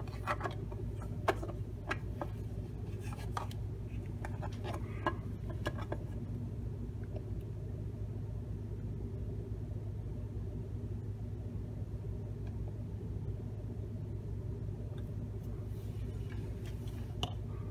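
Steady low hum with a handful of light clicks and taps from handling a 3D-printed plastic box and a squeeze bottle of super glue, mostly in the first six seconds and again near the end.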